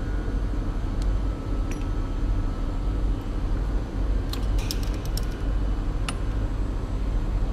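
Steady low hum of background machinery, with a few light clicks about four to five seconds in and once more near six seconds as a small engraving bit is handled and fitted into the collet of a tapered tool holder.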